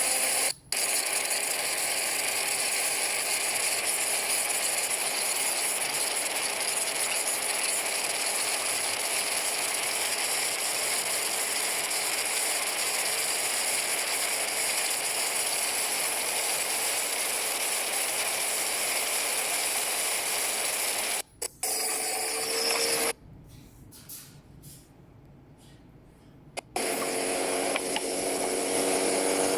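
Steady rushing hiss of wind noise, the problem being demonstrated, heard with noise reduction switched on. It cuts out briefly about half a second in and drops away for about four seconds near the end, with faint rising tones around that gap.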